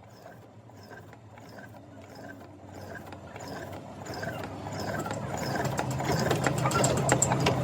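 A machine running with a steady low hum and a regular light tick about twice a second, growing louder toward the end.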